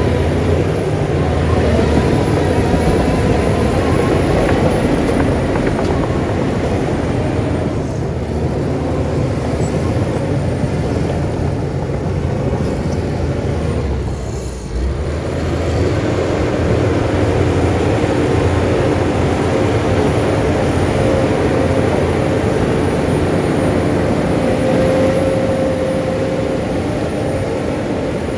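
Heavy diesel earthmoving machinery running steadily under load, with a thin steady whine over the engine rumble. The sound eases briefly about halfway through, then picks up again.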